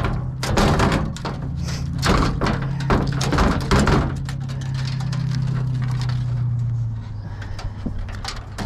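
Power screwdriver running and backing screws out of a TV's panel, with clicks and knocks of metal parts being handled over the first few seconds; the motor hum stops about seven seconds in.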